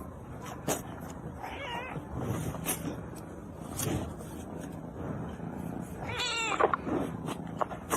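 A cat meowing twice: a short wavering call about two seconds in, and a longer yowl that falls in pitch just after six seconds. Scattered small knocks and clicks are heard around the calls.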